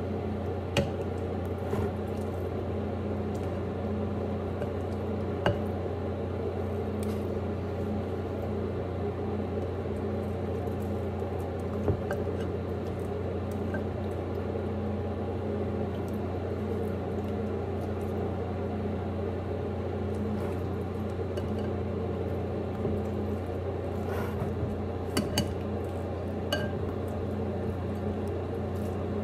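Steady electric hum of a kitchen oven running, under a few sharp metal clinks of tongs against a baking sheet and soft wet handling as marinated chicken thighs are laid out on the pan.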